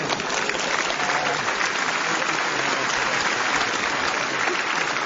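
Theatre audience applauding: a dense, steady clatter of many hands clapping.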